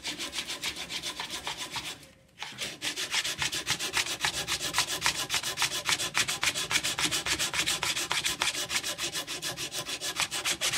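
Coarse P80 sandpaper, wrapped around a file, rubbed back and forth across pine in fast, even strokes of about five a second, taking out saw marks. The strokes stop briefly about two seconds in, then carry on.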